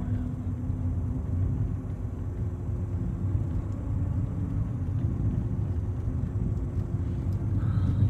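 Car driving slowly along a concrete lane, heard from inside the cabin: a steady low rumble of engine and tyres with a faint steady hum.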